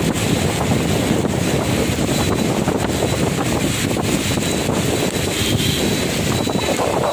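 Steady rushing noise of a car driving through heavy rain, with wind buffeting the microphone.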